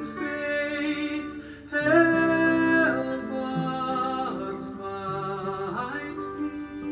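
A gentle recorded song: a singer holds long notes, sliding between pitches, over soft instrumental accompaniment.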